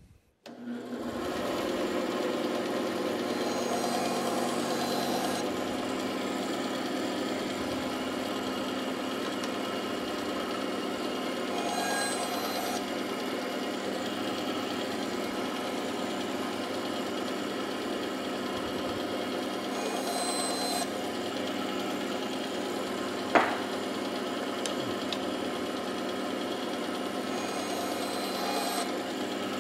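A bandsaw switches on and runs with a steady hum. Four times, roughly eight seconds apart, the blade cuts briefly through wood, each cut a second or two long, as wedges are sawn off the stock on a tapering jig. A single sharp knock, the loudest sound, comes about three-quarters of the way through.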